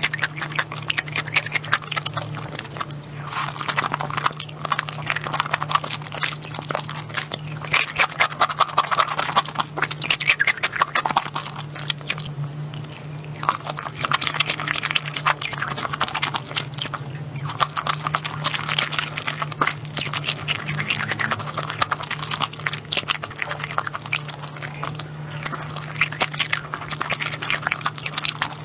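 Close-miked chewing and crunching of food, with dense crackly bites and munching that swell and ease every second or two, over a steady low hum.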